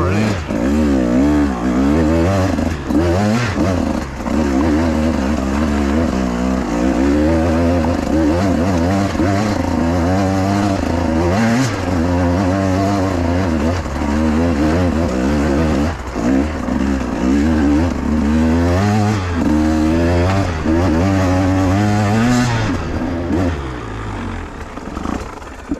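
2024 KTM 150 XC-W TBI's fuel-injected two-stroke single-cylinder engine revving up and down as the throttle is worked, its pitch rising and falling every second or two. It eases off and gets quieter near the end.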